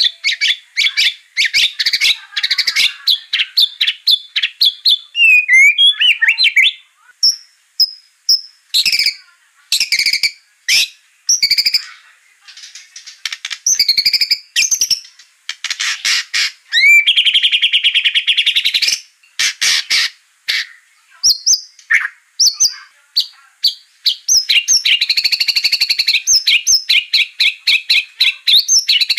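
White-rumped shama singing a long, varied song: bursts of rapid chattering notes, short clear whistles and sustained fast trills, with brief pauses between phrases.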